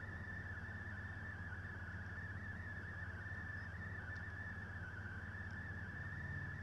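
Room tone: a steady low electrical hum with a thin, constant high whine on top, and no other events.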